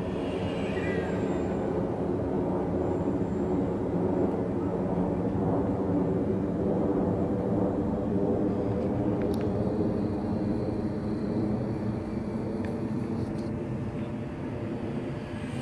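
Great Planes Rifle RC model airplane flying overhead, its motor and propeller giving a steady pitched drone, easing slightly near the end.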